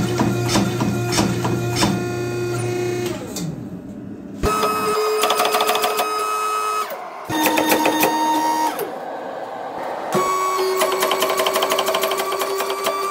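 Background music: held notes over a fast ticking beat, changing pitch in four sections with short dips between them.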